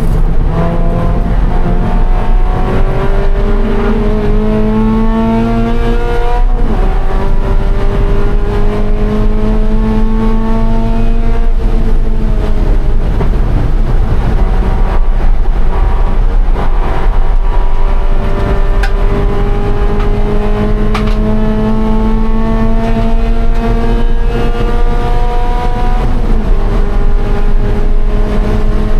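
2013 Scion FR-S's flat-four engine at full throttle, rising in pitch through the gears with upshifts about six and eleven seconds in and again near the end. There is a rougher stretch with a lower note in the middle.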